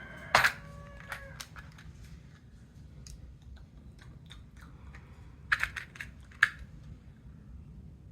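Scattered small clicks and crinkles of a plastic pack of floss picks being opened and handled, with a loud click about half a second in and a cluster of louder clicks between five and six and a half seconds in.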